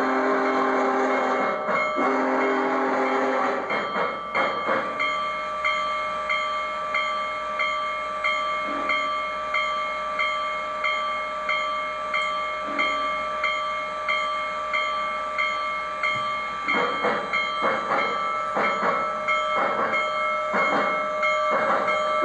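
Onboard sound system of an MTH One Gauge Union Pacific Big Boy model steam locomotive: whistle blasts in the first few seconds, then steady rhythmic steam chuffs over a steady tone, the chuffs coming faster near the end.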